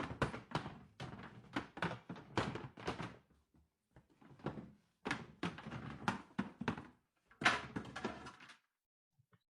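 A clatter: rapid, short knocks in uneven clusters, stopping about a second before the end.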